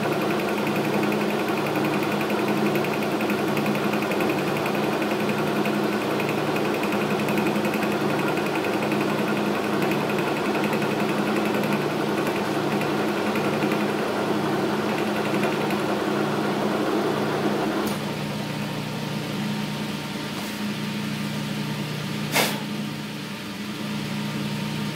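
Logan metal lathe running with a steady gear hum, its carbide tool taking an interrupted cut on the worm feed shaft. The cutting noise drops away about three-quarters of the way through while the lathe keeps running, and there is a single sharp knock near the end.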